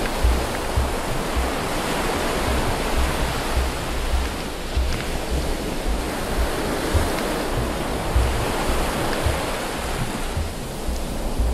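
Underwater noise picked up by a camera held below the surface while snorkeling: a steady rushing hiss with irregular low thumps.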